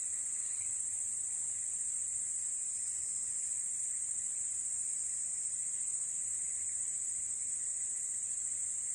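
Tropical forest insect chorus: a steady, high-pitched drone.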